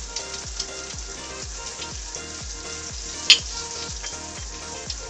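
Beaten eggs frying with onion, capsicum and cabbage in oil in a pan, sizzling steadily. A sharp clink of a utensil on the pan a little past halfway. Background music with a steady beat plays underneath.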